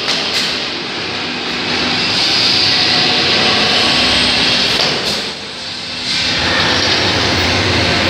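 Manual beer keg washer spraying inside its two clear washing chambers: a loud, steady hiss of water jets. It dips briefly a little past five seconds in, then picks up again.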